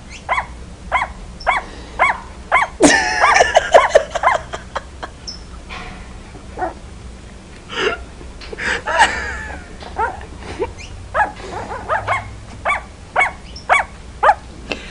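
A puppy barking in short, high yips, about one or two a second, broken by two longer, louder outbursts, one a few seconds in and one around the middle.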